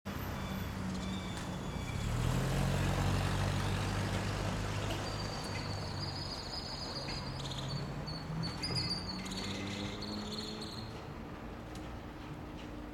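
A motor vehicle's engine running on the street, loudest about two to four seconds in and fading away after about eight seconds. Birds chirp high above it from about five seconds in.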